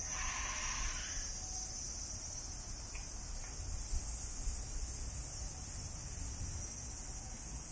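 Summer cicadas buzzing in a steady, unbroken high chorus, over a low outdoor rumble, with a short rush of noise in the first second.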